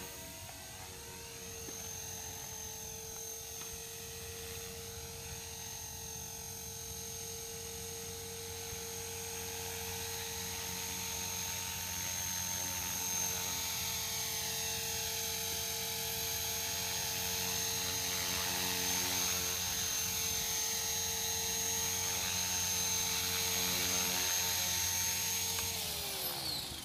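Blade 450X electric RC helicopter running: a steady high motor whine over the buzz of the spinning rotor, growing louder as it comes down and lands on the grass. Right at the end the pitch drops quickly as the motor is cut and the rotor spools down.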